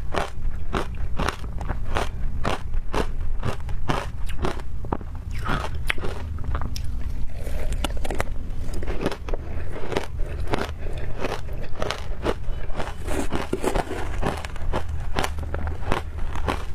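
Frozen ice crunched between the teeth and chewed: a steady run of sharp crunches, about three a second.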